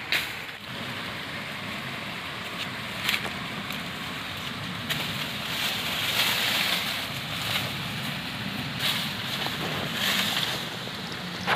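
Hand pruning shears snipping branches while leaves and twigs rustle, over a steady rushing noise; a few sharp snips stand out.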